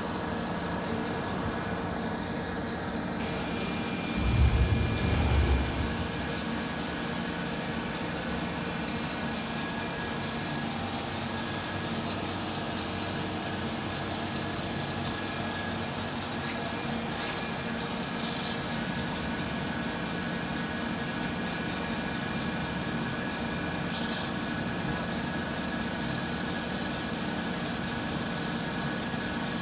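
CNC lathe running steadily with a constant machine hum and whine. A heavy low thud about four seconds in, and a few short sharp clicks in the second half.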